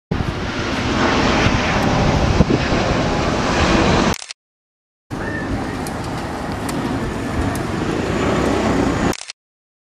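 Aircraft on landing approach heard in two short clips: about four seconds of steady engine noise from a Boeing 777 jet airliner, a second of silence, then about four seconds of steady engine noise from a twin-turboprop transport.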